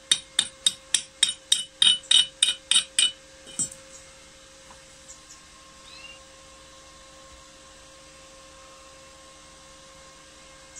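Rapid sharp metallic strikes on a freshly welded steel bar, typical of chipping slag off the weld bead: about a dozen, roughly three a second, stopping about three seconds in. A steady electrical hum runs underneath.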